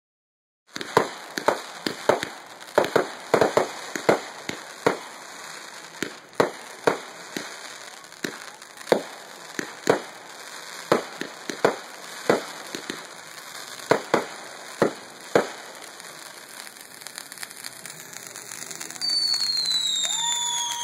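Consumer fireworks going off: a rapid, irregular string of sharp bangs and crackles, several a second, that thins out and stops after about fifteen seconds. Near the end a ground fountain hisses steadily, with a falling whistle.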